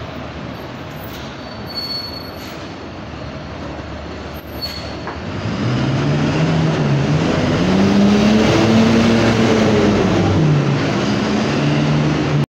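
City bus engine pulling away, its note climbing and then falling back before levelling off. There are two short, high squeaks before it starts.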